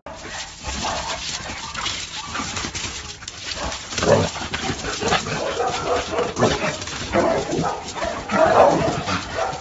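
A dog whimpering and vocalizing in uneven spurts, loudest about four seconds in and again near the end.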